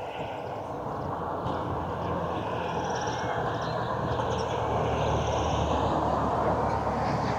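A motor vehicle approaching and growing louder over the first few seconds, then running steadily close by, with small birds chirping over it.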